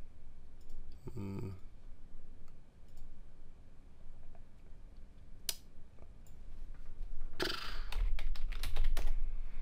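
Typing on a computer keyboard: scattered keystrokes and a single sharp click, then a fast run of keystrokes near the end.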